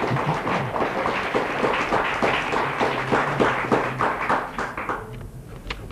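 Studio audience applauding, thinning out and dying away about five seconds in, with a few sharp clacks of the quiz board's letter tiles being moved near the end.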